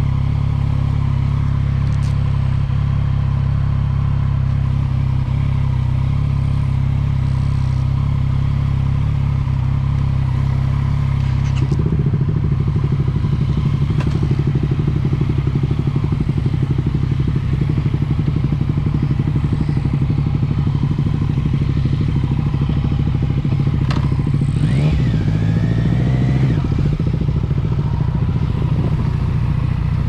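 Yamaha MT-09 Tracer's inline-three engine running on the move, a steady drone that turns louder and fuller about twelve seconds in. Near the end the pitch rises as the engine revs up.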